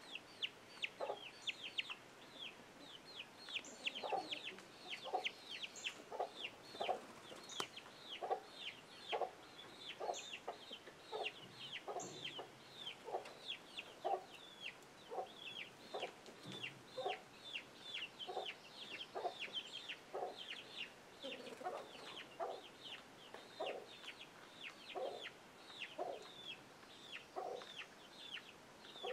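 A hen clucking steadily, about one short low cluck a second, while young chicks peep continuously, many quick high peeps falling in pitch.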